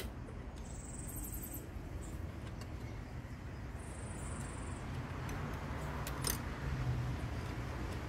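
Small metal clicks and clinks of hands handling a small outboard motor's carburetor and fuel-line fittings, over a steady low hum. One sharp click comes at the start and a few more about six seconds in.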